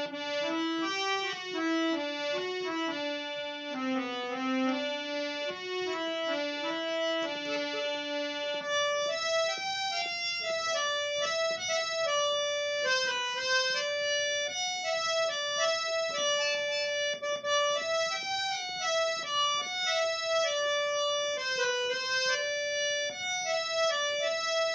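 Instrumental interlude of a Hindi ghazal: a melody on a reed-like keyboard instrument with sustained notes. About eight seconds in, the lower melodic line drops out and a higher melody carries on.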